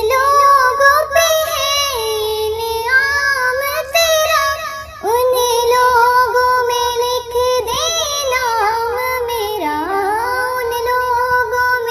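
A naat, an Islamic devotional song, sung solo in a high voice. It runs in long, ornamented phrases whose notes bend and waver, with a short breath about five seconds in before the next phrase.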